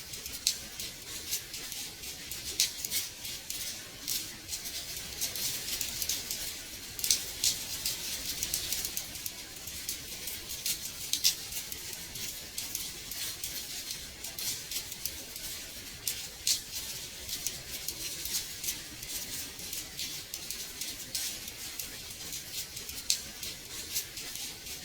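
Gentle rain on a window pane: a steady, light hiss of rainfall dotted with many small, irregular ticks of drops hitting the glass.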